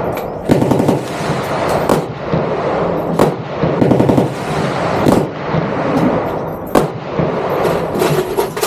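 Gunfire on a shooting range: loud single shots mixed with short bursts of rapid automatic fire, from more than one gun.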